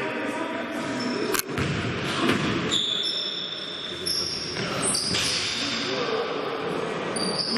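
Basketball game sounds in an echoing sports hall: a sharp thud about a second and a half in, then several short, high squeaks of sneakers on the court floor, over players' voices.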